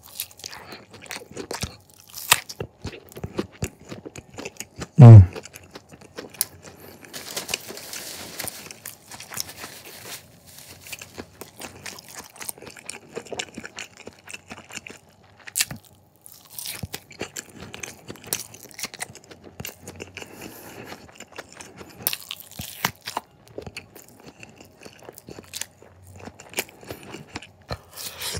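Close-miked eating: biting and chewing thick slices of canned luncheon meat topped with chopped chili, with a run of small wet mouth clicks and smacks. About five seconds in comes a short, loud voiced sound that drops in pitch.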